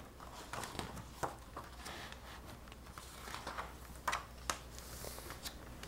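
Pages of a hardcover picture book being turned and pressed flat by hand: faint paper rustles and a few soft taps and clicks.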